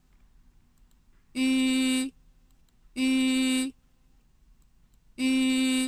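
A voice pronouncing the Zhuyin vowel ㄩ (ü) three times, each a held syllable of under a second at an even pitch, with short pauses between.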